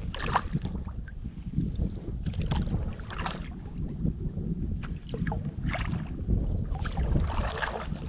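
Kayak paddle strokes in calm river water: the blades dip and splash in an uneven rhythm, about once a second, over a steady low rumble.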